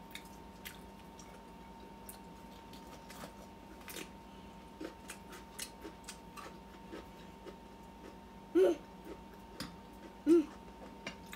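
Close-up mouth sounds of a person chewing braised pork: soft wet clicks and smacks throughout. There are two brief voice sounds near the end, each about a second and a half apart.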